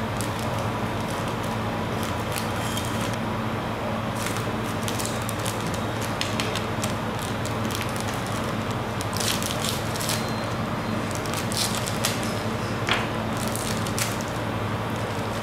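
Plastic wrappers of Oreo Crispy packets crinkling and crackling irregularly as they are handled and slit open with a knife, over a steady low hum.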